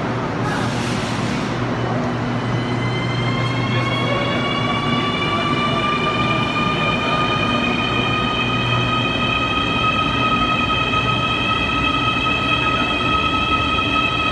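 Santiago Metro AS-14 electric train pulling out, its traction motors whining in several tones that rise slowly in pitch as it picks up speed, over a steady low hum. A short hiss about half a second in.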